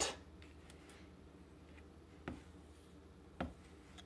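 Two faint clicks about a second apart as a table knife knocks against the peanut butter jar while stirring.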